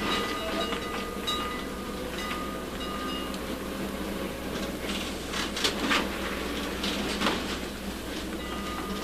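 Streetcar running on its rails: a steady rolling rumble broken by several sharp wheel clacks between about five and seven and a half seconds in.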